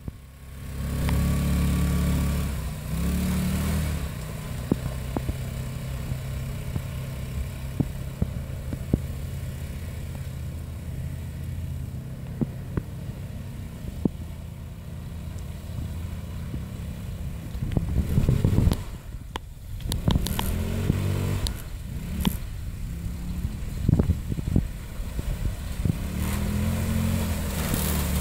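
150cc go-kart engine running and revving as the kart pushes through mud and grass, its pitch rising and falling with the throttle. There are surges near the start, about two-thirds of the way in and near the end. Scattered sharp knocks and clicks come through over the engine.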